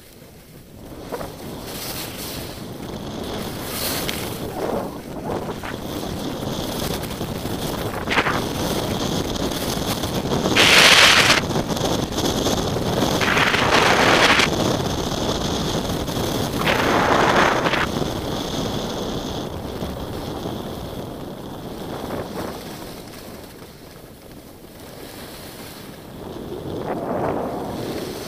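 Skis hissing over snow and wind rushing on the microphone during a downhill run, with three louder scrapes of the ski edges around the middle and a faint high whistle.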